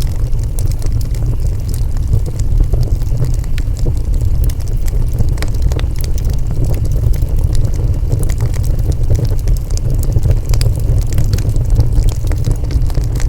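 Wood fire burning: a steady low rumble of flames with frequent sharp crackles and pops from the burning wood.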